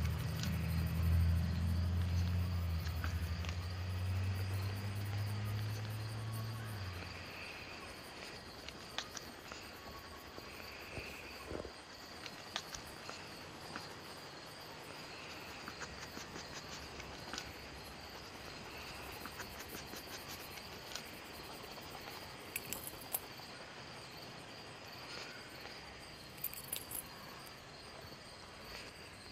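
Steady high insect-like chirping ambience with soft repeating pulses. A low hum fades out about seven seconds in, and faint scattered clicks are heard.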